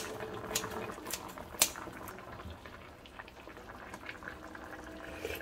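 Pork-belly and kimchi stew bubbling in a cast-iron wok, a steady simmer with many small pops. Several sharp clicks in the first two seconds, the loudest about a second and a half in, come from tongs and kitchen scissors working in the pan.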